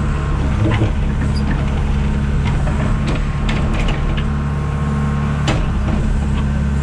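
John Deere 310G backhoe's diesel engine running steadily at raised throttle, with a few sharp knocks and clanks from the machine over the drone.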